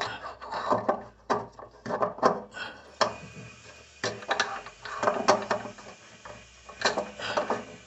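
Irregular clicks, knocks and scraping of a tool working a faucet's mounting nut under a bathroom sink as the nut is tightened.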